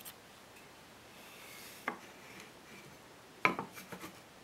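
Maple boards knocking against each other and the wooden tabletop as they are handled. There is a single knock about two seconds in, then a louder clatter of several knocks about a second and a half later.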